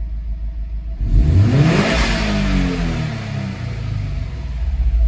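Subaru WRX STI's turbocharged flat-four engine idling, then free-revved while standing still: the revs jump about a second in, climb quickly, fall back slowly, and pick up again near the end.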